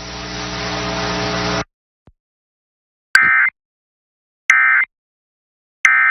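A hiss of static with a low hum grows louder for about a second and a half and cuts off abruptly. After a pause come three short, identical digital data bursts about 1.4 seconds apart: the Emergency Alert System's End of Message (EOM) tones, which signal that the alert is over.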